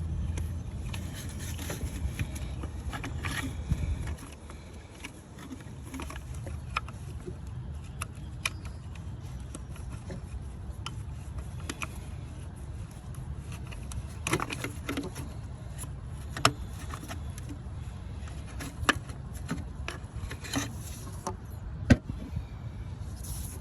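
Scattered clicks and knocks of a wrench and hardware being worked while unbolting a boost solenoid in an engine bay, over a steady low rumble.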